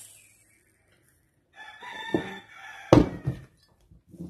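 A rooster crowing once, a held call lasting about a second, followed about three seconds in by a sharp, hard knock on the table, the loudest sound here.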